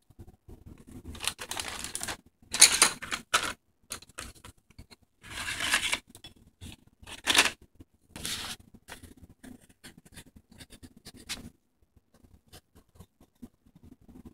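Sheets of drawing paper rustling as they are handled and shuffled, in several short bursts with quiet gaps between.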